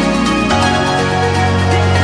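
Background music: sustained chords over a deep bass line, the bass changing note about half a second in.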